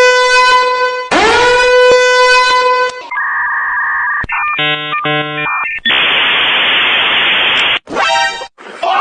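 A run of meme sound effects cut back to back. First come two long horn-like blasts with a rising onset. Then a steady electronic two-note tone, a choppy beeping pattern, about two seconds of static-like hiss, and a short buzzy burst near the end.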